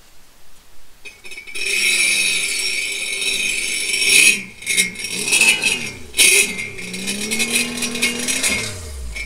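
Sea-Doo personal watercraft engine run briefly while the craft sits out of the water on its trailer, revving up and down several times, with a loud hiss of water being blown out to clear the lake water from it. The sound starts about a second and a half in.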